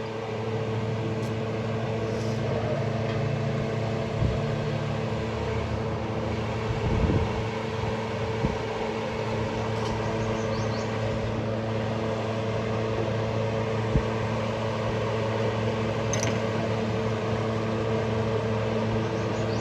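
A steady mechanical hum with a few short knocks, the clearest about seven and fourteen seconds in.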